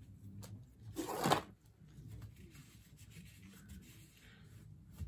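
Shop rag rubbing and scraping against a rebuilt power steering pump as it is handled, with one louder rub about a second in and a few light knocks.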